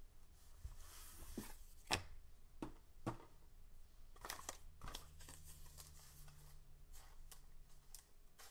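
Trading cards handled by hand: scattered light clicks and soft rustles of card stock between the fingers, the loudest about two seconds in.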